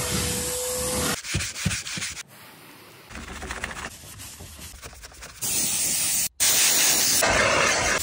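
Car-interior detailing sounds in quick succession: a carpet extractor wand sucking over carpet, a quieter stretch of a microfibre cloth wiping, then loud steady hissing from a handheld steam cleaner.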